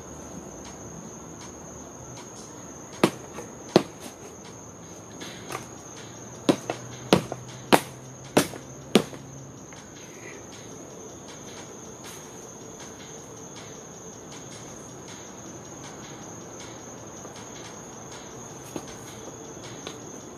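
Crickets chirping steadily, with a run of about seven sharp wooden knocks and cracks between about three and nine seconds in, as a wooden pallet is broken up by hand.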